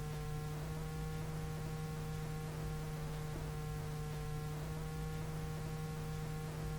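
A steady low hum with several fainter steady tones above it, and faint ticks now and then.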